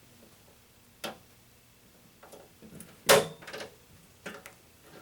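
A few sharp clicks and knocks of hard objects being handled: a click about a second in, a louder knock about three seconds in, and several softer taps around it.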